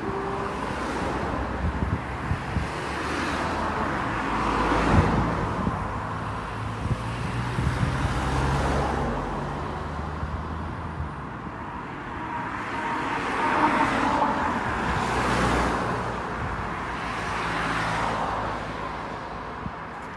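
Road traffic: several cars passing by one after another, each rising and fading, over a low engine hum.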